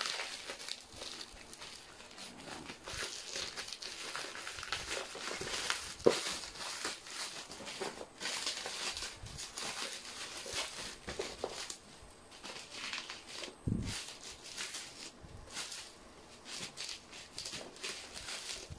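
Plastic packaging and bubble wrap crinkling and rustling as they are handled and cut open with scissors. There is a sharp click about six seconds in and a dull bump about two-thirds of the way through.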